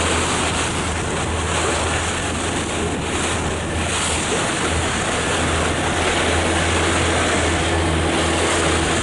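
Wind on the microphone and rushing water from a moving boat, over a steady low engine hum.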